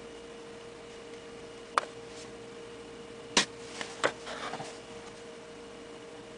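Three sharp clicks and taps of plastic makeup items being handled (a compact mirror and an eyeliner pen), the middle one the loudest, with a brief soft rustle just after the last, over a steady faint electrical hum.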